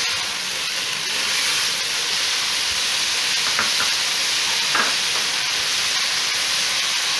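Diced potato, carrot and green bell pepper sizzling steadily in hot oil in a nonstick wok, with a spatula stirring them at the start.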